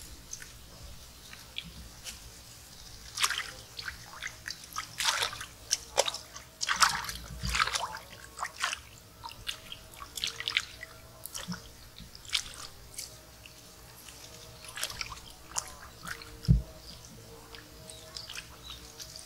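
Hands splashing and sloshing in shallow stream water while washing a gutted fish, in irregular small splashes and drips, with a single low thump near the end.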